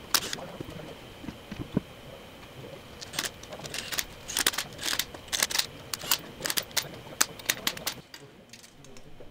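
Irregular sharp metallic clicks and clinks of lug nuts and a socket tool on a wheel's studs, as a new wheel is bolted on. The clicks thin out about eight seconds in.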